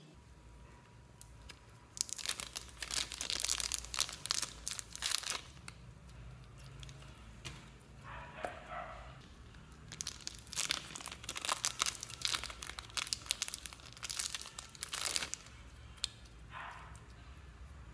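Slime being stretched and squished by hand, crackling in two long runs with a couple of short squeaks in between.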